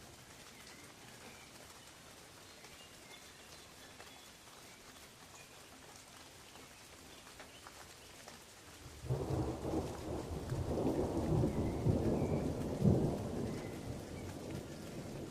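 Steady rain falling on forest leaves. About nine seconds in, a loud, low rolling rumble of thunder sets in, swells over the next few seconds and slowly fades.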